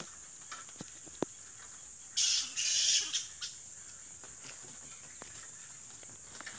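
Harsh screech from a tree roost of bats about two seconds in, in two parts lasting under a second, over a steady high-pitched buzz and a few faint clicks.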